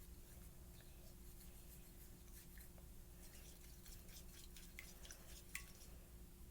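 Near silence: room tone with a faint steady hum and scattered faint light clicks and taps.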